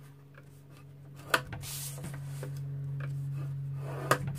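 Cardstock being scored by hand: a few sharp clicks, the loudest about a second and a half in and another near the end, with a brief scratchy scrape.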